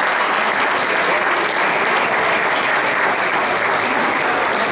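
Audience applauding steadily: many hands clapping.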